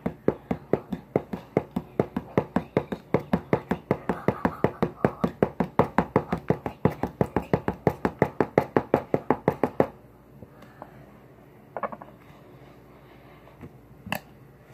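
Knife point tapping rapidly on a hardcover book in the gaps between the fingers of a spread hand (the knife game), about four to five even taps a second. The tapping stops about ten seconds in, and a few scattered knocks follow.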